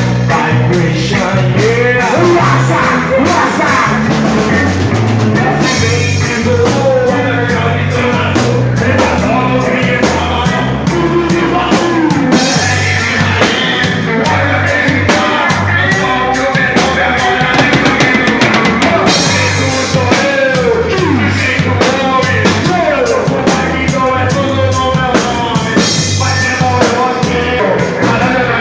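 Live heavy rock band playing loud: pounding drum kit with kick drum, distorted guitars and bass, and a singer's voice over it.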